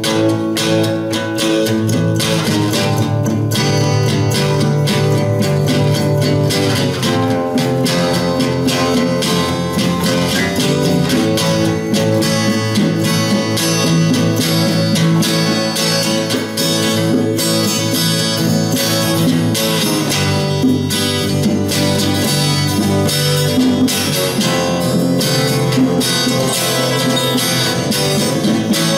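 Acoustic guitar strummed in a steady rhythm, changing chords every few seconds: the instrumental introduction of a song, before the singing comes in.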